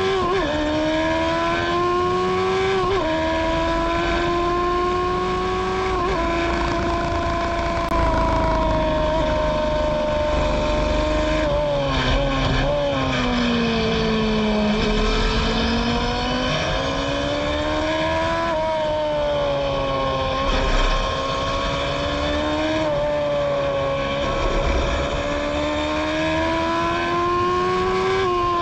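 1000 cc Yamaha engine of a Formula Gloria single-seater race car at high revs, heard from the cockpit. Its pitch climbs under acceleration with sudden drops at upshifts about 3 and 6 seconds in, sinks under braking about halfway through, then climbs again, dipping briefly twice before rising near the end.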